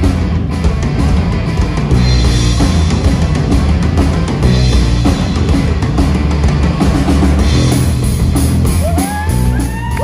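Live rock band with drum kit and guitar kicking in all at once and playing loud, full-band rock.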